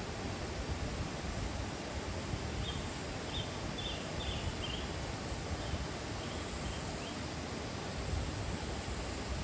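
Steady noise of a fast-flowing river, with a few short high chirps about three seconds in.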